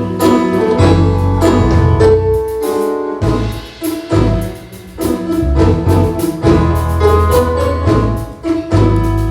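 Live band music with piano, bass and drums, held chords over a steady beat, with a brief drop near the middle.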